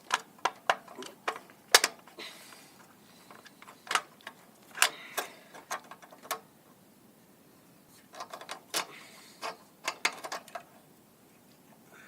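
Irregular metallic clicks and clinks of hand tools on a generator's metal parts, in scattered clusters with a short lull in the middle.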